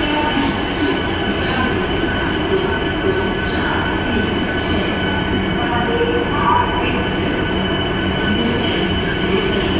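Vande Bharat Express electric trainset moving slowly along the platform: a steady rumble of coaches rolling on the rails under a constant electric hum.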